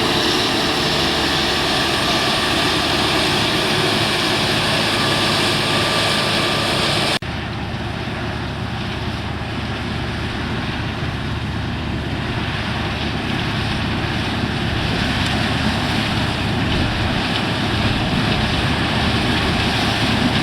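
Claas Lexion 480 combine harvester running steadily in the field, a continuous engine and machinery drone. About seven seconds in the sound cuts abruptly and carries on a little quieter and less hissy.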